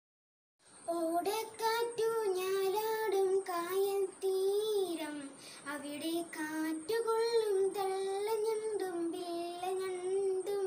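A young boy singing a song alone, with no instruments, in a high child's voice, holding and bending sustained notes. The singing begins about half a second in, after a moment of silence.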